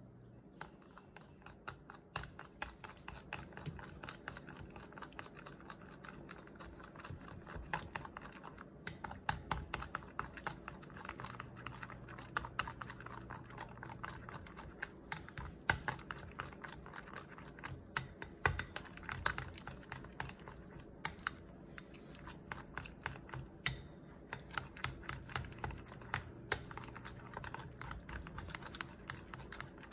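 Wooden chopsticks beating eggs into a thick pancake batter in a glass bowl: rapid, irregular clicking of the sticks against the glass, beginning about half a second in.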